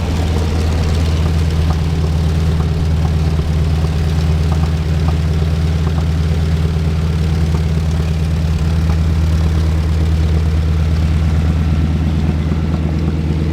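North American T-6 Texan (Harvard) nine-cylinder Pratt & Whitney R-1340 Wasp radial engine idling steadily after startup, with a deep, even throb.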